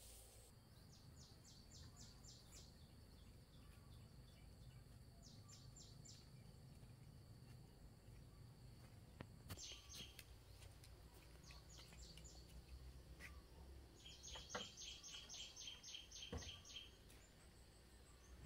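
Small birds calling: rapid runs of short, high chirps, about eight notes a second, coming in several bouts, the longest and loudest near the end. A couple of faint knocks are heard alongside.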